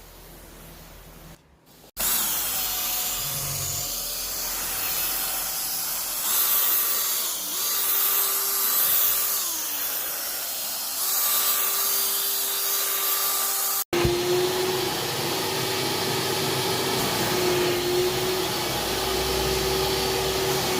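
Kärcher vacuum cleaner running for deep carpet and upholstery washing. It comes in loud about two seconds in, a steady rush of air with a whine that briefly drops in pitch a few times, cuts out for an instant about two-thirds through, then carries on steadily.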